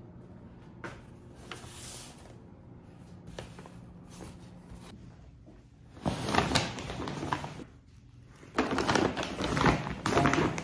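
Shopping bags rustling and crinkling as they are handled close to the microphone, loud in two stretches from about the middle on with a short pause between them. Before that, only a faint hum with a few light taps.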